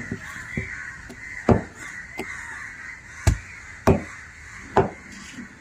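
A large cleaver-like knife chopping through fish onto a table, about seven sharp chops at irregular intervals, the loudest about three seconds in.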